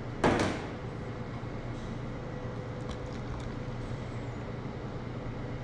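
Steady low hum of kitchen ventilation or machinery, with a brief clatter just after the start as a stainless steel saucepan holding a mesh strainer is set down on a steel worktable.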